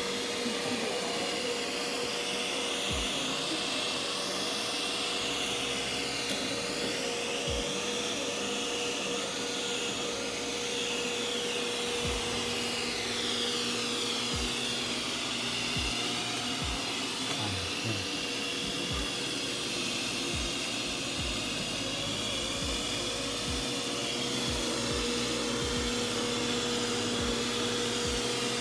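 Ecovacs Deebot N79W robot vacuum running as it cleans: a steady motor whir with a constant hum, and a few faint low knocks scattered through it.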